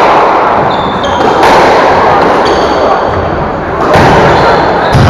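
Squash rally: the ball cracks off racquets and the walls a few times, echoing in the enclosed court, with rubber-soled shoes squeaking on the wooden floor between shots.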